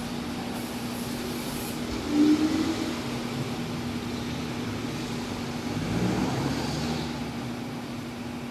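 Steady low background hum over a constant rumble, with a brief louder sound about two seconds in.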